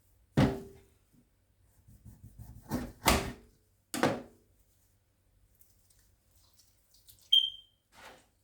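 Kitchen clatter: three sharp knocks of pots or utensils being set down, each with a short ring, with lighter rattling between them, and a brief high ping near the end.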